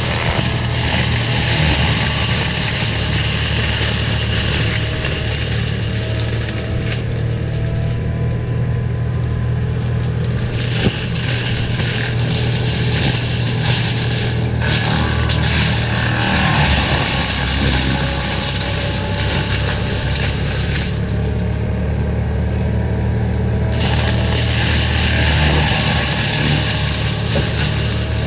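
Forestry mulcher running at steady working speed, its engine droning under the grinding and crunching of brush being shredded in the mulching head. The grinding eases back twice for a couple of seconds, about a third of the way in and again near three-quarters, while the engine keeps running.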